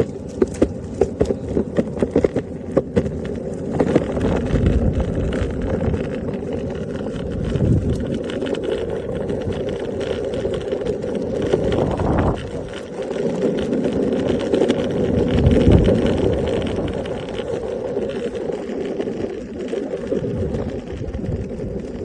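Steady rumble of a moving vehicle with wind noise on the microphone and a constant hum throughout; a run of sharp clicks in the first few seconds.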